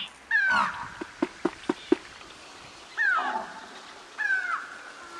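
Three short animal-like cries, each sliding down in pitch, about a second apart at the start and then a second and a half apart near the end. Between the first two comes a quick run of about five sharp clicks.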